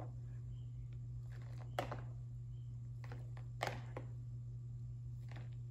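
Plastic toy cups being washed by hand in a bowl of soapy water: a few brief splashes and knocks, the two loudest about two seconds and three and a half seconds in, over a steady low hum.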